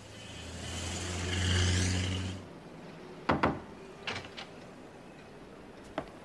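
A passing car: a low hum with a hiss that swells, then cuts off suddenly about two and a half seconds in. After it come a few sharp knocks or clicks, the loudest about three seconds in.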